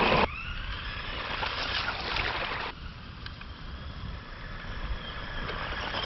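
Electric motors of a Bwine C11 RC truck whining. The loud opening sound cuts off abruptly, then a quieter whine rises in pitch, and the sound changes sharply again about two and a half seconds in.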